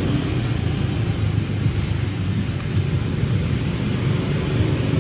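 Steady low rumbling noise with a fainter hiss above it, unchanging throughout.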